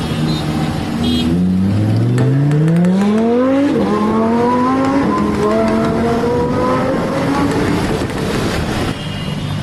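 Sports car accelerating hard. After a steady engine note, the revs climb quickly, drop sharply at a gear change about four seconds in and again about a second later, then climb more slowly in the next gear.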